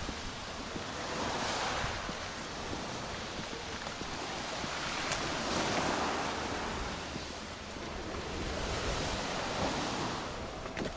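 Sea waves washing in, the hiss swelling and fading about every four seconds, with some wind on the microphone.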